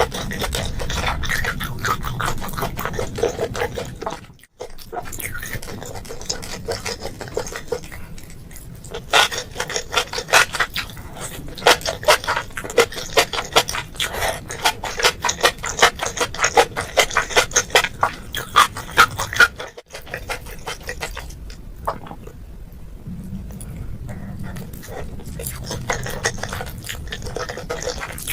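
Close-miked chewing and wet mouth sounds from someone eating boiled seafood and enoki mushrooms: many quick sticky clicks and smacks, thickest in the middle, with a couple of brief pauses.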